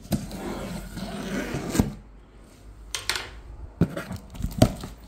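Cardboard boxes scraping and sliding against each other for about two seconds, then several sharp knocks and taps as the inner box is handled.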